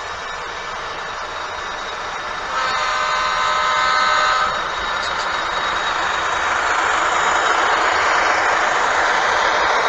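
A model train locomotive's sound system sounds its horn once, for about two seconds, a little over two seconds in. Under it runs a steady noise of the train moving on the layout, which gets louder in the second half.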